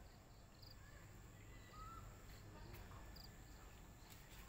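Near silence: faint outdoor ambience with a low rumble and a few faint, short high chirps.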